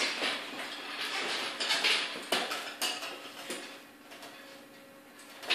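Irregular metal clinking and scraping as a bike lock is worked at and rattled by hand against the bike frame, quieter near the end.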